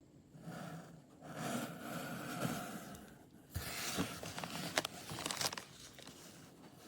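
Packaging being handled and crinkled, rustling and crackling in stretches with a few sharp clicks about four to five seconds in.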